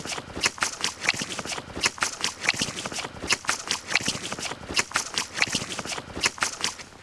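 A wooden stick raking and scraping through leaf litter, twigs and soil on the forest floor: quick, irregular scrapes and crackles, several a second.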